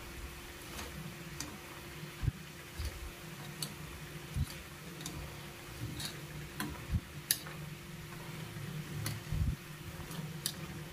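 Mathri deep-frying in hot oil in a steel kadhai, sizzling steadily, with irregular sharp clicks and a few louder knocks as a wire-mesh skimmer stirs the pieces and knocks against the pan.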